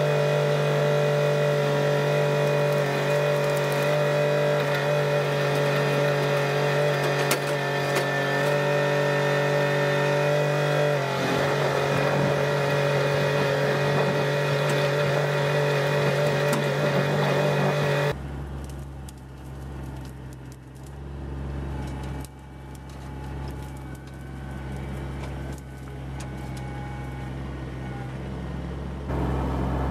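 Kubota tractor's diesel engine running steadily at working revs, its pitch shifting slightly about eleven seconds in. Past the middle the sound drops suddenly to a quieter, deeper and uneven rumble, and grows louder again just before the end.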